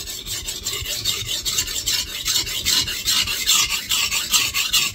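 Nitro-V steel knife blade being stroked rapidly back and forth on a coarse 120-grit Shapton Kuromaku whetstone, a continuous gritty scraping in quick even strokes. This is the coarse stone setting the primary edge and raising a burr.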